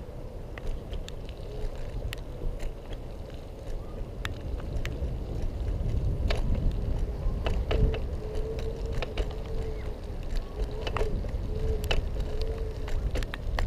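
Xiaomi M365 electric scooter riding along: a thin wavering whine that dips and returns as speed changes, over a steady low rumble, with scattered sharp clicks and knocks.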